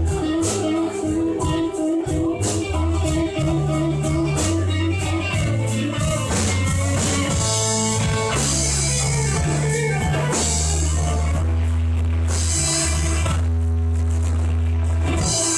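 A slow blues band playing an instrumental passage: guitar over bass and drums, with a quick repeated guitar note at the start and cymbals washing in the later part.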